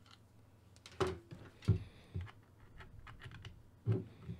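A few separate knocks and clicks as a handheld ham radio and its coax cable connector are handled during a radio swap, the loudest about a second in and again just before the end.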